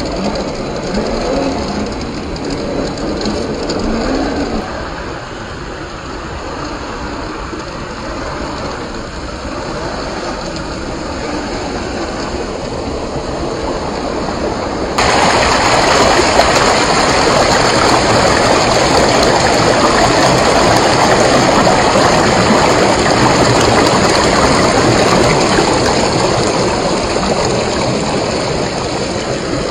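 Rushing river water, a steady hiss that suddenly becomes much louder about halfway through. In the first few seconds there is also a faint rising whine from the RC crawler's 540-size 35-turn motor and drivetrain.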